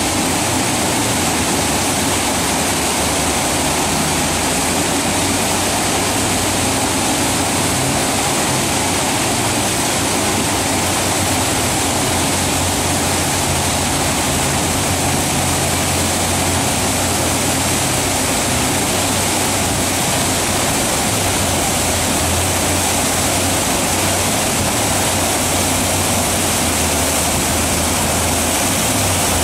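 Steady roar of big whitewater rapids, with a jet boat's engine droning low underneath, its pitch stepping up and down now and then as the boat works in the waves.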